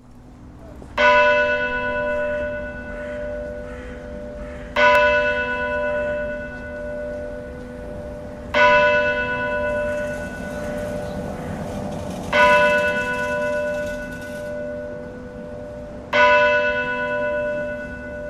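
A single large bell tolling five times, one stroke about every four seconds, each stroke ringing on and fading until the next.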